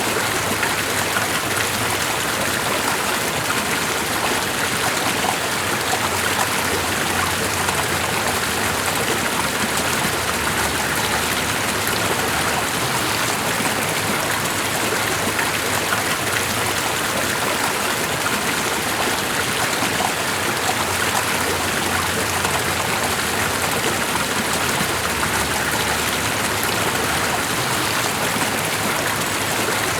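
Steady, even rush of running water with fine splashing and no pauses.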